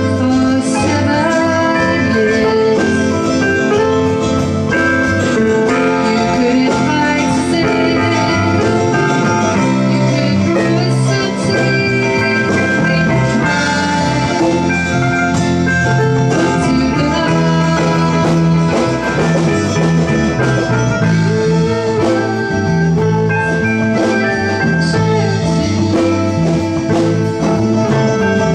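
A band playing through a song in rehearsal: sustained pitched instruments over a steady beat of drum hits.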